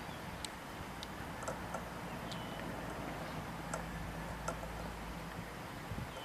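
Quiet outdoor ambience: a steady hiss with several short, sharp ticks and chirps scattered through it, and a faint low hum in the middle.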